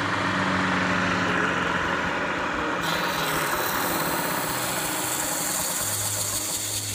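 Belt-driven homemade wooden band saw wheel spinning fast on its shaft and bearings, a steady machine run with a low hum. About three seconds in, a hissier rubbing sound joins as the spinning wheel's rim is sanded by hand.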